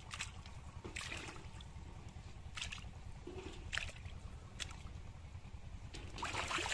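Raw chicken pieces being washed by hand in water: a handful of short wet splashes and drips about a second apart, with a busier cluster near the end.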